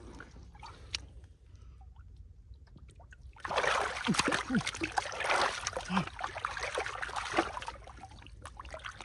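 Water splashing and sloshing in shallow water as hands work through it: faint trickling and drips, then a burst of heavy splashing lasting about four seconds that starts a few seconds in and dies back to trickles.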